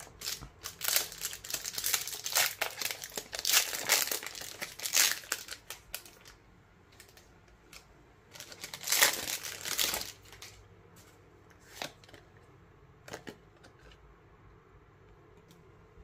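Foil wrapper of a Pokémon TCG Sword & Shield Brilliant Stars booster pack being crinkled and torn open. It crackles for about five seconds, crinkles again in a shorter burst about nine seconds in, then gives a couple of light taps.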